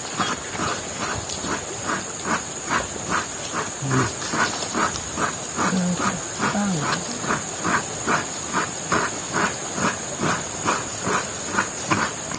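Coconut being grated by hand on a metal coconut-scraper blade (kukur kelapa) fixed to a log: steady, rhythmic rasping strokes, about two and a half a second.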